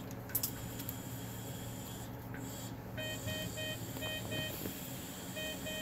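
A bedside medical monitor alarm sounding: short electronic beeps in repeating groups of three then two, starting about three seconds in, over a steady low hum of equipment.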